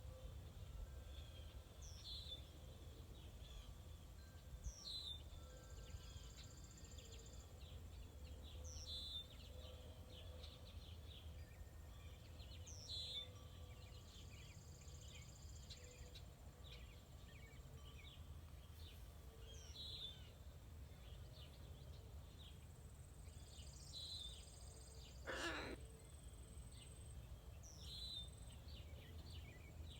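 Faint bird calling outdoors: one bird repeats a short, high call every three to five seconds over scattered softer chirping. About 25 seconds in, a brief harsh burst stands out as the loudest sound.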